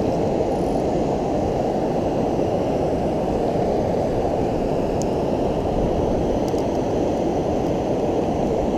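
Steady, dull rush of fast river water flowing over and below a weir.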